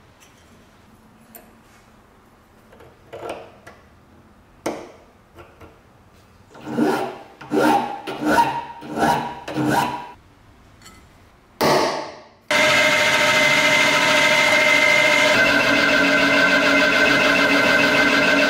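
A hand file rasps in about six quick strokes on a steel piece clamped in a bench vise, with a ringing scrape on each stroke, and then one more stroke. After that a machine spindle starts up and runs steadily, driving a countersink bit into a steel tab. Its hum shifts a little about midway through the run.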